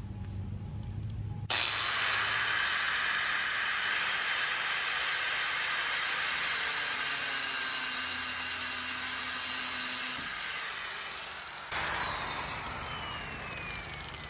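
Corded angle grinder with a cutoff wheel cutting through stainless steel lifeline wire: a loud grinding starts suddenly about a second and a half in, eases off at about ten seconds, and bites again briefly. Near the end the grinder is switched off and winds down in a falling whine.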